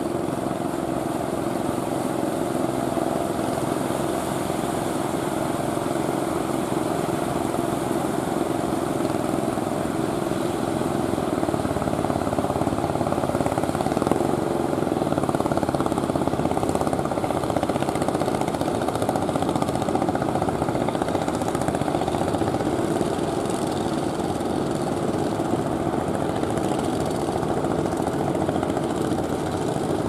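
Engines of wooden outrigger fishing boats running steadily as the boats push through the surf, over the rushing wash of large breaking waves.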